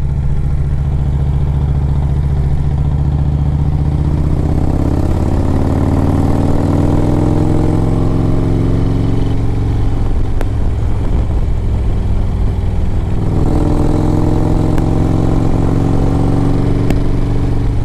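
Screaming Eagle 113 cubic-inch V-twin of a 2007 Harley-Davidson Road Glide running under way. The engine pitch climbs from about four seconds in as the bike accelerates, eases off briefly, then climbs again from about thirteen seconds in.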